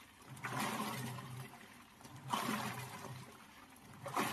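Washing machine wash motor agitating the water, turning back and forth: three surges of churning, sloshing water about every two seconds, each with a low motor hum. The motor's forward and reverse rotation now works normally after its wiring was repaired.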